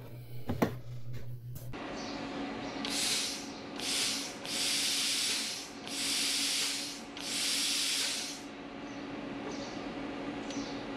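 Compressed air hissing out of a Hypertherm Powermax 900 plasma torch in five bursts of about a second each as the gas test button is pressed, checking that air pressure reaches the torch. A steady low hum runs underneath.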